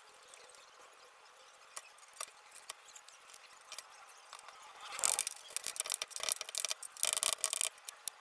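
Large kitchen knife chopping garlic on a plastic cutting board: a few scattered light taps at first, then a fast run of chopping strokes for about three seconds from just past the middle.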